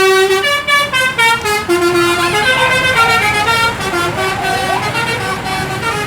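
Telolet basuri musical bus horn playing a quick tune of held notes that step from one pitch to the next, over a low steady hum.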